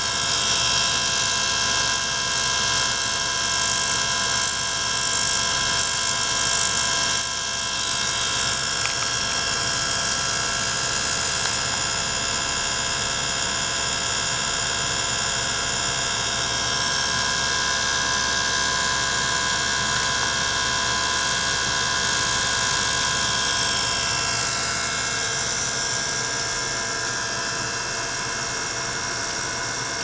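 Small liquid-circulation pump running steadily, pushing bubbly water through a tank driven by an ultrasonic transducer. It makes a steady hum and hiss with several held high tones. The highest hiss drops away about a third of the way through and returns about two-thirds through.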